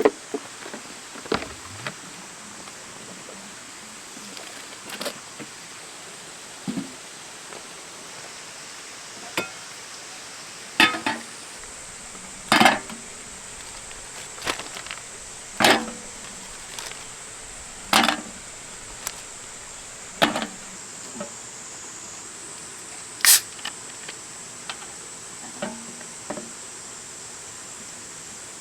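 Scattered sharp knocks and clinks of hard objects, about a dozen at irregular intervals, over a steady high-pitched hiss.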